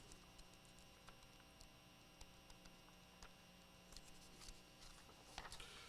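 Near silence: room tone with a faint steady hum and a few soft ticks, and a brief soft rustle near the end.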